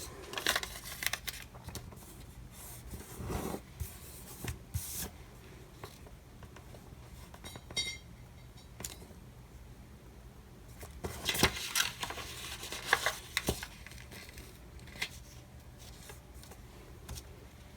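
Stickers and paper being handled on a planner page: scattered small rustles, taps and clicks, busiest about two-thirds of the way through.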